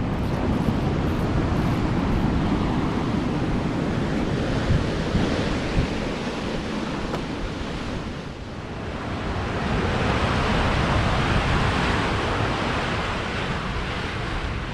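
Ocean surf washing and breaking against rock, mixed with wind buffeting the microphone. It eases briefly about eight seconds in, then swells up louder.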